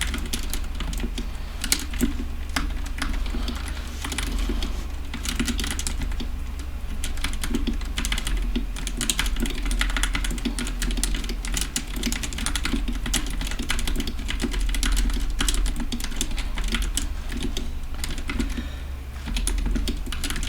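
Continuous fast typing on a custom 60% mechanical keyboard: a DZ60 3.0 PCB with lubed Gateron Black linear switches mounted in an aluminium plate, making a steady stream of keystroke clacks.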